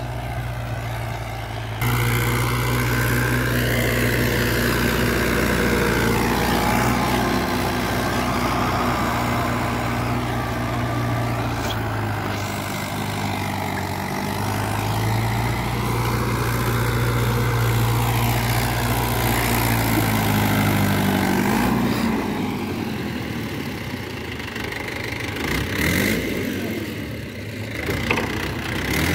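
Mahindra 575 tractor's diesel engine running steadily under load as its rear rotavator churns dry soil. About twenty seconds in, the engine note falls and its deep hum fades.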